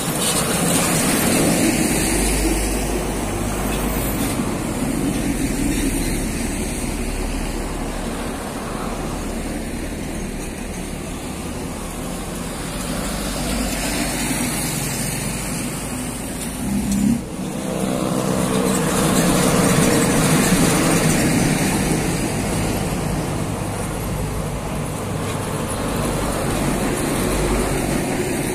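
Road traffic passing close by: trucks and motorcycles going past with tyre noise and engine rumble. A little past halfway there is a brief sharp thump, followed by a heavy vehicle's engine droning for several seconds.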